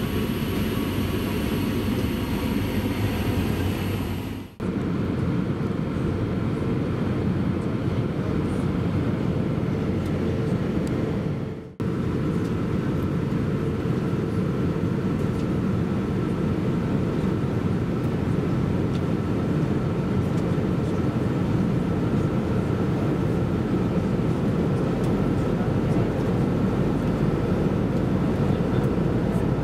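Airbus A320-232 cabin in flight: a steady deep rush of airflow and IAE V2500 engine noise. The sound dips and comes back abruptly twice, about four and twelve seconds in.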